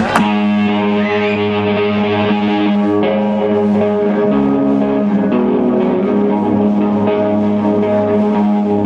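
Live electric guitar and bass guitar coming in together and playing held, ringing rock chords that change a few times.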